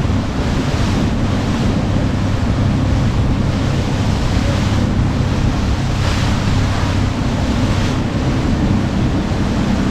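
Steady wind buffeting the microphone over the rush and slap of sea water around a small fishing boat, with the hiss swelling a little around the middle.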